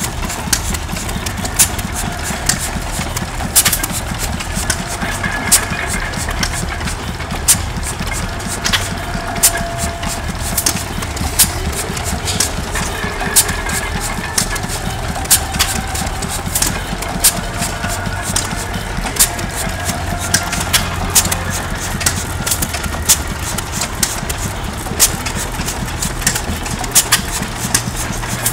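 Several antique flywheel stationary gas engines of the hit-and-miss kind running together: a steady low chugging, with sharp exhaust pops at uneven intervals as the engines fire, a sputtering sound.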